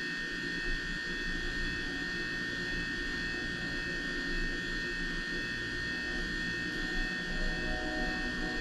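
Steady background hum with a constant high-pitched whine, unchanging throughout: room noise from running equipment while nobody speaks.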